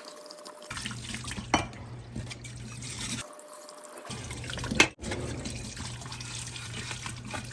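Water running over an espresso portafilter basket as it is rinsed to wash out the smell of the cleaning detergent, with a few sharp knocks, the loudest about five seconds in.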